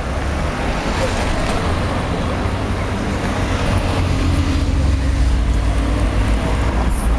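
Evening road traffic: cars, taxis and motor scooters passing and idling, a continuous low engine rumble with tyre noise on a wet road. A steady engine hum comes in about four seconds in.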